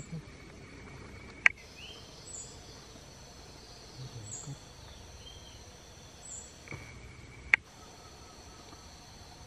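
Two sharp single rifle shots, about six seconds apart, fired at a squirrel up in the canopy, over a steady drone of insects.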